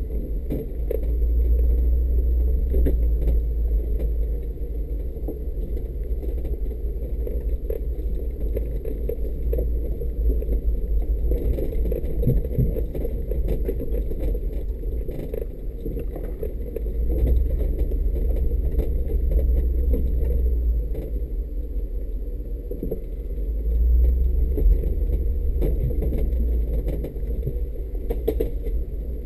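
Mercedes-Benz G500's V8 running at low speed as the vehicle crawls over a rough forest track: a steady deep rumble that swells a few times, with scattered sharp knocks and clicks.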